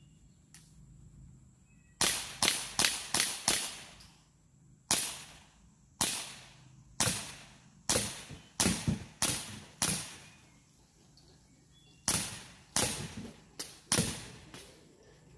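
Daisy CO2 BB pistol firing about twenty sharp cracks in three strings: a fast string of six shots about two seconds in, a slower string of about ten, then after a pause four or five more near the end.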